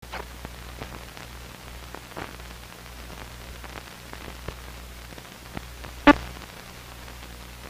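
Crackle and scattered clicks of an old film soundtrack over a steady low hum, as the film leader counts down. One much louder pop comes about six seconds in.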